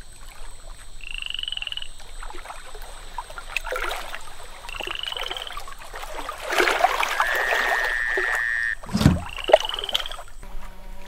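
River ambience of frogs croaking, with a steady high whine, three short rising chirps and a held note. Water sloshes and splashes, the loudest a low thump with a splash about nine seconds in.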